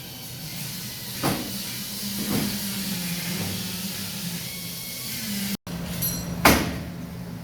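Metal fabrication shop work: a steady low hum with hiss, broken by a few sharp metal knocks. The loudest knock comes about six and a half seconds in.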